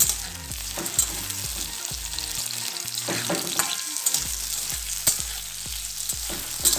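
Chopped onion, carrot, green beans and tomato sizzling in hot oil in a kadai, stirred with a spatula that scrapes and clicks against the pan every second or two.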